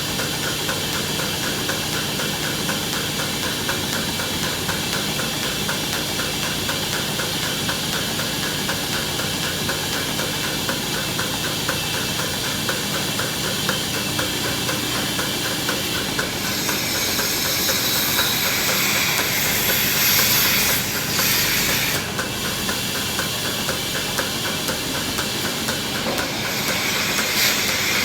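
Steady mechanical hiss with a fast, even ticking, growing louder and brighter for several seconds from about the middle and again near the end.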